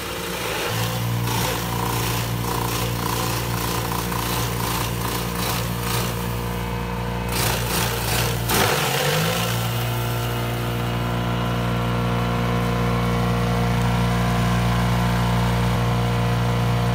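Takyo TK3000 banana-stem chopper with a 3 kW electric motor, shredding a banana stalk with a rough, steady chopping noise over the motor's hum. About nine seconds in the chopping stops, and the hum rises in pitch as the motor speeds back up, now unloaded. It then runs steadily.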